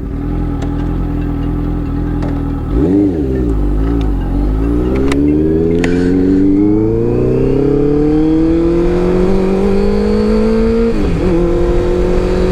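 Honda CBR650F's inline-four engine through an Arrow full-system exhaust with no dB killer fitted: a quick blip of the throttle about three seconds in, then a long climb in pitch as the bike accelerates, with a brief dip near the end as it shifts up a gear.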